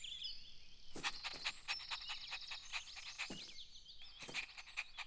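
Sound effects for an animated garden scene: birds chirping throughout, with runs of soft, quick clicks as the cartoon puppy scampers, about a second in and again near the end.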